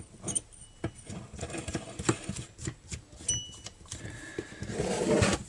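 Small metal clicks and rattles as a chainsaw's centrifugal clutch is threaded back onto the crankshaft by hand, with a brief metallic ring a little past halfway. Near the end there is a louder stretch of scraping handling noise.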